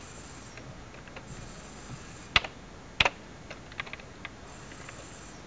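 Computer keyboard keystrokes working a library circulation program's menus: two sharp clacks a little over two seconds in, a half-second apart, then several lighter taps.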